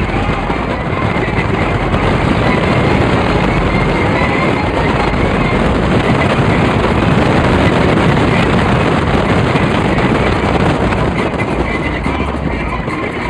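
Loud, steady rushing of wind and road noise from a car driving along a road, heard from inside the car, swelling a little in the middle.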